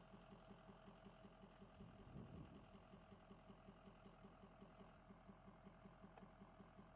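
Near silence with a faint engine-like hum that pulses evenly, about five times a second, swelling slightly about two seconds in.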